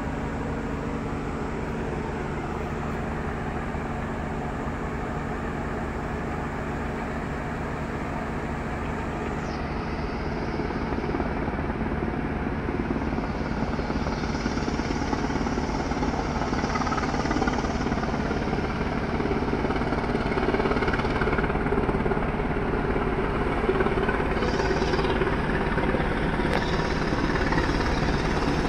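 Helicopter flying around overhead, its rotor and engine noise steady at first, then growing louder about a third of the way in as it comes nearer.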